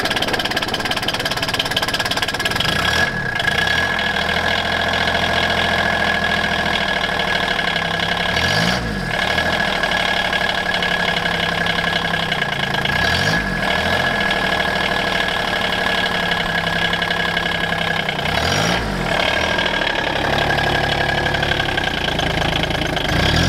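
John Deere Gator utility vehicle engine running just after a cold start in subzero weather, blipped up and back down in short revs about every five seconds, four times. A steady high whine runs over the engine.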